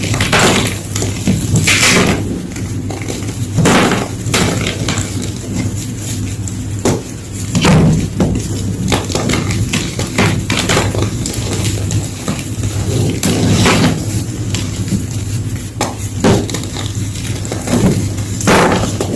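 Blocks of gym chalk being crushed and crumbled, a run of irregular crisp crunches and cracks with a louder crunch every few seconds, over a steady low hum.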